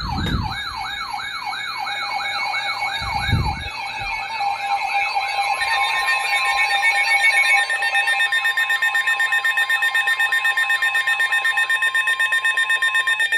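Weather radio alert alarm ahead of a severe thunderstorm warning. A warbling, siren-like tone sweeps up and down about three times a second. About halfway through it gives way to a steady tone with rapid pulsing beeps, which cut off suddenly at the end.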